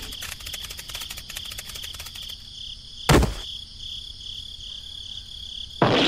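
Crickets chirping in a steady, high, fast-pulsing trill, with one short thud about three seconds in. Brass music comes in right at the end.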